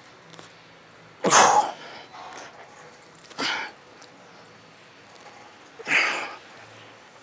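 A man's forceful exhalations during cable biceps curls, one sharp breath with each rep, three of them a couple of seconds apart, the first the loudest.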